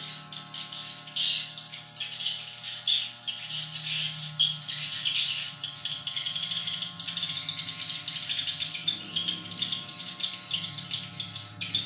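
Swiftlets twittering: a continuous dense chatter of chirps and rattling clicks, with a low steady hum underneath.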